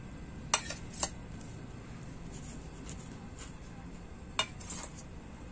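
A spoon clinking against a dish a few times as rabri is spooned over rasmalai: sharp single clinks about half a second in, a second in and near the end.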